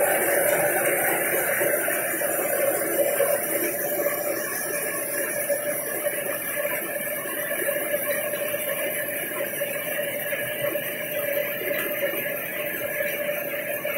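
Industrial belt conveyor running: the belt and its idler rollers make a steady whirring rumble with a constant hum through it, slowly fading a little.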